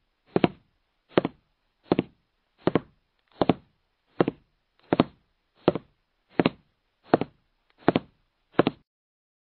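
A short dry knock, each a quick double hit, repeated at an even pace about every three-quarters of a second, with silence between the hits.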